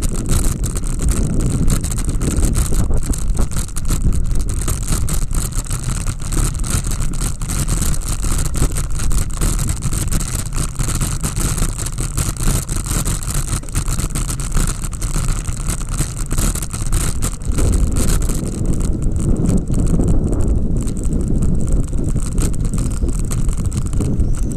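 Wind rushing over a bicycle-mounted action camera's microphone while riding, with a constant jolting rattle from the bike's tyres and frame over cobblestones and rough street paving. The low rumble grows heavier about two-thirds of the way through.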